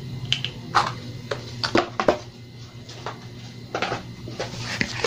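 Handling noise: a tablet's USB charger and its cable being handled and set down, giving scattered light clicks and knocks. They come as a cluster in the first two seconds and a few more near the end, over a steady low hum.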